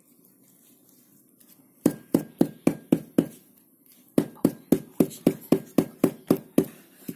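Green bamboo tube knocked upright against a concrete floor, a hollow knock about four times a second in two runs of about six and ten, packing the fish and fern-leaf stuffing down inside.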